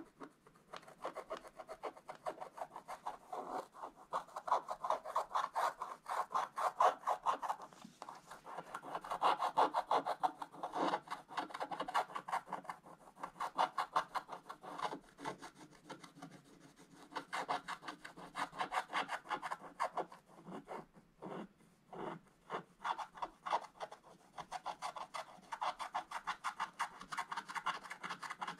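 A wooden stylus scratching the black coating off a scratch-art page in quick, short strokes, a rapid dry scraping that comes in runs of a few seconds with brief pauses between them.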